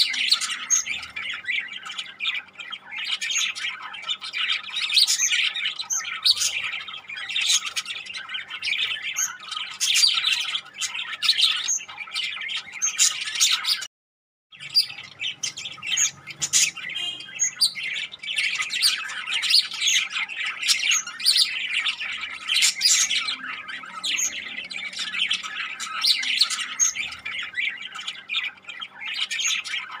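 A flock of budgerigars chattering, a dense continuous mix of many overlapping chirps and squawks. A brief dead-silent break cuts in about halfway through.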